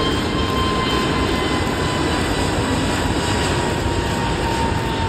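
Jet engines of an Airbus A321neo LR airliner rolling along the runway: a steady rushing noise with a faint high whine that sinks slightly in pitch.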